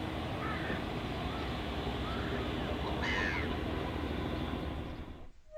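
Steady low rumble of a tour boat's engine, with birds calling over it: a faint call about half a second in and a louder one about three seconds in. The sound cuts off just before the end.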